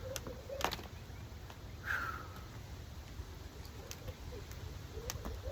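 Jump rope slapping the ground in a steady rhythm of about two strikes a second, thinning out in the middle before picking back up near the end. A short falling chirp sounds about two seconds in.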